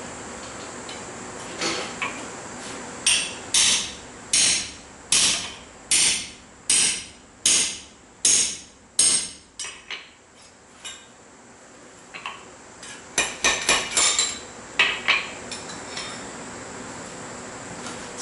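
Blacksmith's hand hammer striking steel on an anvil while forging a bottle opener. There is a steady run of about ten sharp blows a little under a second apart, each one dying away quickly. A few quicker, lighter strikes come near the end.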